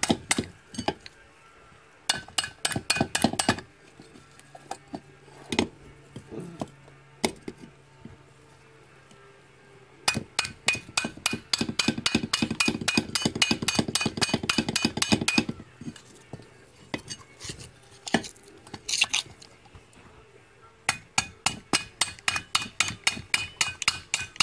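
Fast metal-on-metal hammer blows on a screwdriver driven against a stuck pinion bearing in a Polaris Sportsman 800 front differential housing. The clinking strikes come in three quick bursts of about five a second, with short pauses and a few single knocks between. The bearing is jammed in tight and is being knocked loose.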